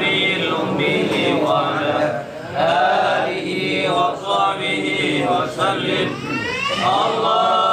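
A group of men chanting Arabic dhikr together in a sing-song recitation, as at a tahlil/samadiyah prayer for the dead, with a long rising phrase about six seconds in.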